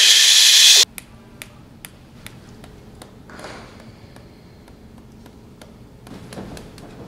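A loud, drawn-out 'shhh' shushing hiss swells up and cuts off abruptly just under a second in. A quiet room follows, with soft sharp ticks a little over two a second.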